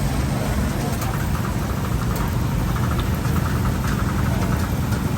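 A steady low mechanical rumble with faint chatter of voices.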